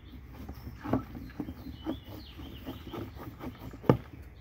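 A coffee canister knocking and thudding irregularly against a wooden porch rail as it is shaken, with a hand holding its lid down. The loudest knock comes near the end.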